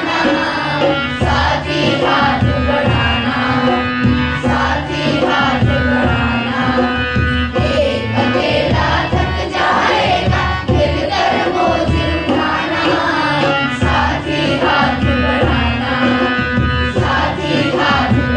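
A group of school children singing a song in unison, with percussion accompaniment and a steady sustained tone under the voices.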